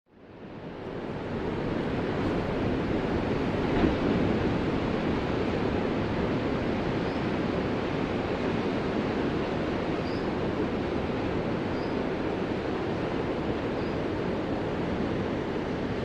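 Ocean surf: a steady wash of breaking waves, fading in from silence over the first second or so, with a brief tick about four seconds in.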